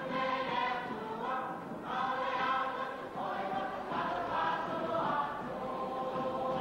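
Samoan church choir of mixed men's and women's voices singing a pese in phrases of held notes.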